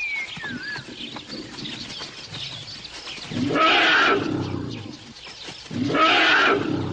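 Two loud, harsh wild-animal calls, each lasting about a second, the second coming about two seconds after the first. Birds chirp lightly at the start.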